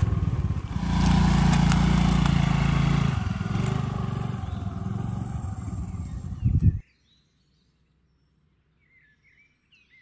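Scooter engine running as the scooter rides off. It is loud for the first few seconds, then fades as it pulls away. The sound cuts off abruptly about seven seconds in, and faint bird chirps follow near the end.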